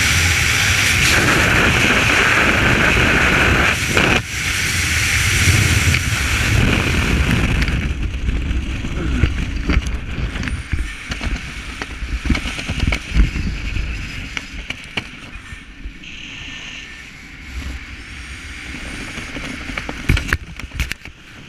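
Freefall wind rushing over the camera microphone, then a parachute opening: the noise dips briefly about four seconds in and falls away after about eight seconds. Under the canopy the wind is quieter, with scattered knocks and rustles that cluster near the end.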